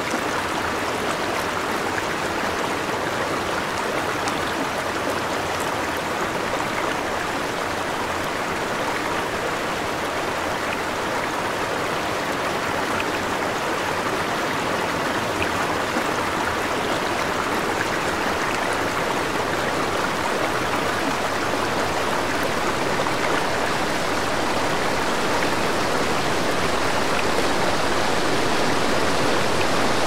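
Small waterfall rushing in a steady, unbroken wash of water noise, growing gradually a little louder over the last third.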